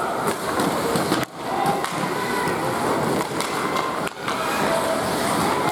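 Ice skates scraping and carving across the rink during youth hockey play, with sharp clacks of sticks and puck scattered throughout.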